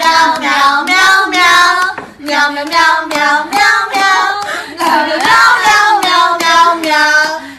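A high voice giving a long run of short, pitched, sung-like notes that rise and fall, with a brief pause about two seconds in.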